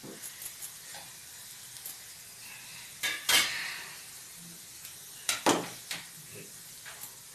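Gram-flour sev frying in hot oil, a steady sizzle. A metal slotted spoon clatters against the pan twice, sharply about three seconds in and again about five and a half seconds in.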